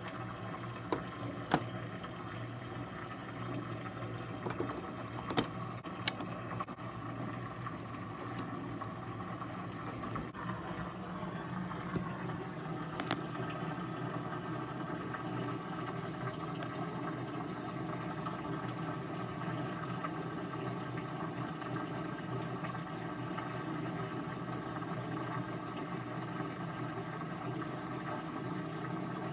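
DVD player loading and reading a disc: a few sharp clicks as the disc goes in, then the drive spinning up, a steady mechanical whir and hum that grows a little stronger about ten seconds in.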